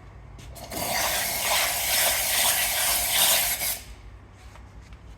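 Steam wand of a Nuova Simonelli Aurelia II commercial espresso machine opened for about three seconds, a loud hiss of steam that starts abruptly and cuts off sharply.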